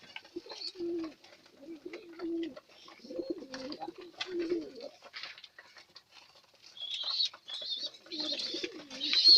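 Domestic pigeons cooing in a run of low, wavering coos. From about seven seconds in, high-pitched squeaking builds from young squabs begging to be fed by their mother.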